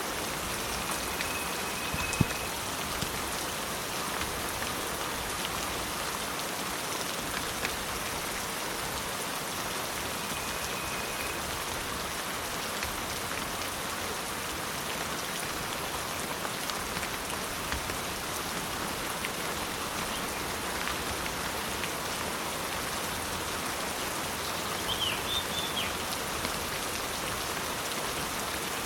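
Steady rain falling on a surface, an even hiss with scattered drop ticks. About 25 s in, a few brief high chirps sound over it.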